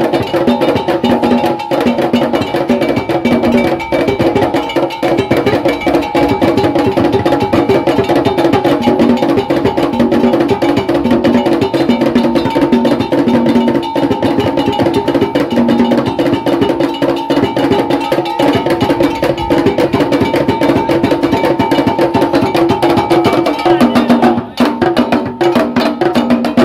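Ga Kpele ritual music: drums and percussion playing a dense, steady beat of sharp knocks over a sustained pitched backing.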